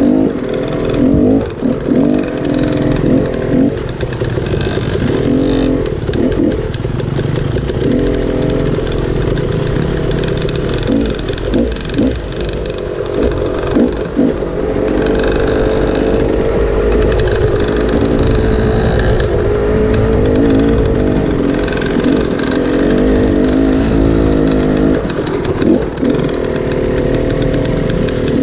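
Dirt bike engine being ridden hard, revving up and down over and over with frequent quick throttle chops.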